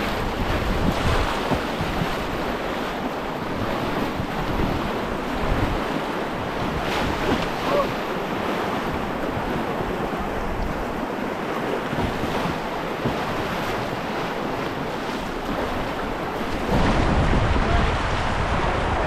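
Rushing river water with wind buffeting the microphone in uneven gusts, getting rougher and louder near the end.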